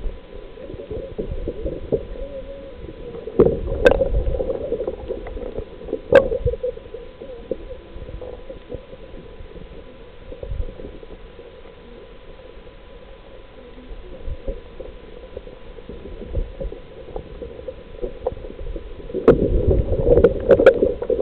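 Muffled water sloshing and gurgling, with a few sharp knocks a few seconds in and a louder burst of splashing near the end.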